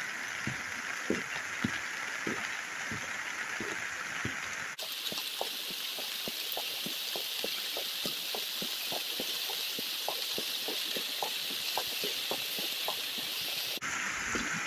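Heavy rain from the remnants of Hurricane Hilary falling steadily, with many single drops pattering close by over the steady hiss of rain and running water. The hiss turns brighter in tone about five seconds in and switches back near the end.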